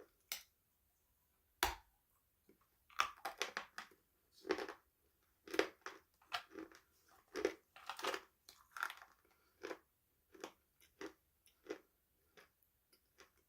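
Crunchy food being bitten and chewed close to the microphone: a sharp bite about a second and a half in, then a quick run of crisp crunching chews that thin out to softer, sparser chews near the end.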